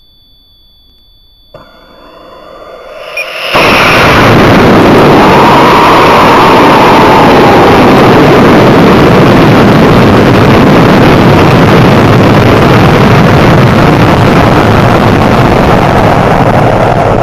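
Onboard audio of an Apogee Katana high-power rocket launching on a J540R solid-fuel motor. Faint steady high tones on the pad give way about a second and a half in to a pop and a swelling hiss as the motor lights. From about three and a half seconds an extremely loud, steady rush of motor and air noise runs against the onboard camera as the rocket climbs at high speed, easing slightly near the end.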